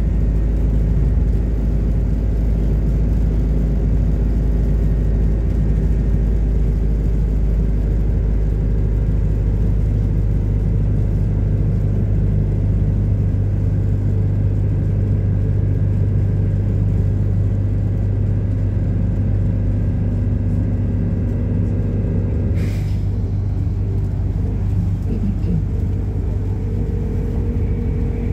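MAZ-226 bus's engine and road noise heard from inside the passenger cabin while riding, a steady low drone. A single short knock sounds about four-fifths of the way through.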